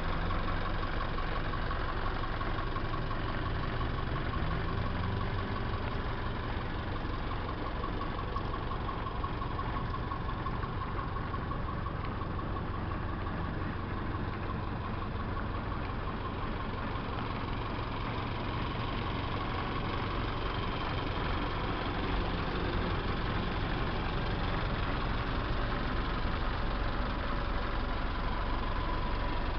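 Engine of a small cab-over fire truck idling steadily.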